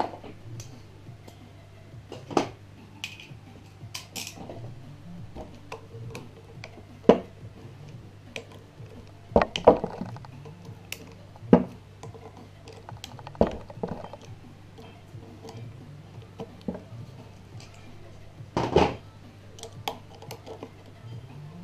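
Hand tools and metal parts of a pit-bike engine being handled during a teardown, clicking and clanking against the aluminium engine case and a wooden table. The knocks come irregularly, loudest about halfway through and again near the end, over a steady low hum.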